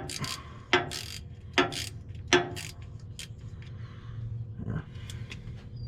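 A 2-pound dead blow hammer tapping a transmission speed sensor down into its bore, four taps a little under a second apart, each with a brief rattle of the shot inside the hammer head, like maracas. The taps are seating the sensor and its new O-ring.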